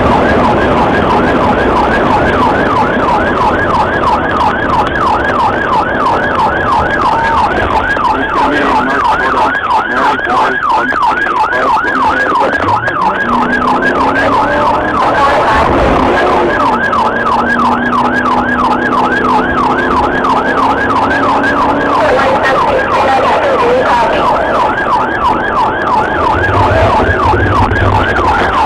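Police car siren wailing in a rapid yelp, sweeping up and down several times a second without a break, with the cruiser's engine and road noise underneath.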